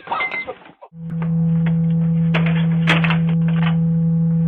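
A loud, steady low hum starts about a second in and holds, with a few short clicks over it; a brief voice comes just before it.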